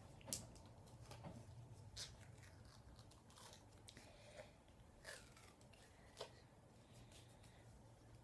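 Faint clicks and rustles of duct tape being handled and wrapped around a PVC pipe, a few short ticks spread over several seconds above a low steady hum.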